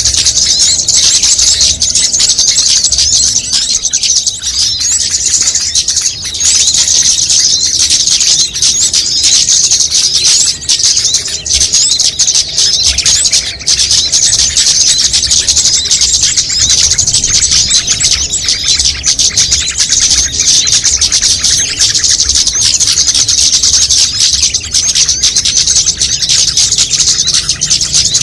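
Dense, continuous high-pitched chirping and twittering of many small songbirds, a mixed bird-lure recording made to draw small birds in.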